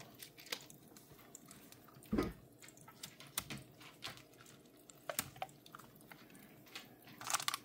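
MRE food pouches and flameless ration heater bag being handled: scattered faint crinkles and taps of plastic packaging, with a soft thump about two seconds in and a louder rustle near the end.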